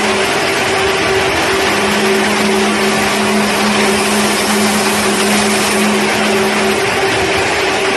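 A bank of cold spark machines (electronic stage sparklers) running: a steady rushing hiss with a motor-like whir and hum. The hum drops out near the start, comes back after a second and a half, and cuts out again near the end as fewer units fire.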